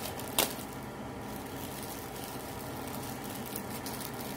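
Plastic packaging crinkling as a new foam vacuum filter is unwrapped by hand, with one sharp crackle near the start.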